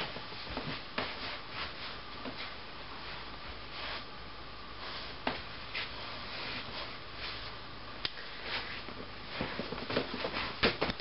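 Faint rustling of clothing and soft shuffling steps as a person stands and turns around, with a few light knocks and ticks, more of them near the end.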